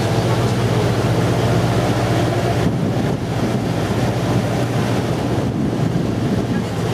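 Engine of a small river boat running steadily, a constant low drone, with wind buffeting the microphone and water rushing past the hull.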